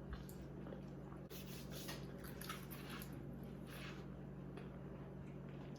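Quiet eating at a table: faint, scattered chewing and soft food-handling noises over a steady low hum.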